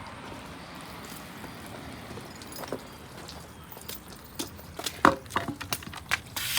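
Sump pump parts being handled: a steady hiss, then a run of sharp clicks and knocks starting about four seconds in, the loudest about five seconds in.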